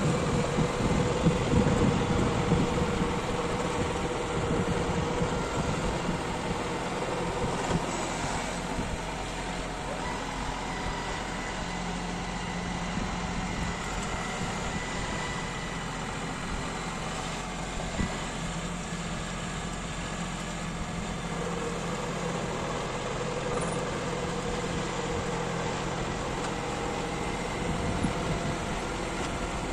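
John Deere 5210 tractor's three-cylinder diesel engine running steadily under load while it drives a rotary tiller through dry soil. Wind buffets the microphone in the first few seconds, and there is a single knock about 18 seconds in.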